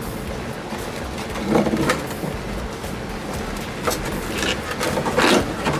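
A metal hand tool scraping and picking at old foam inside a rusted steel body cavity of a 1972 VW Super Beetle. There is a cluster of short scrapes about a second and a half in, then more near the end.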